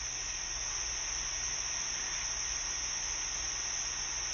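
Steady hiss with a constant high-pitched band on top and a low hum underneath: the background noise of a camera microphone recording, with no animal call in it.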